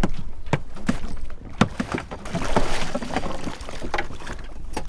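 Hollow knocks and thumps from a small wooden boat as someone climbs in, with a burst of water splashing and sloshing against the hull about two to three seconds in. Low wind rumble underneath.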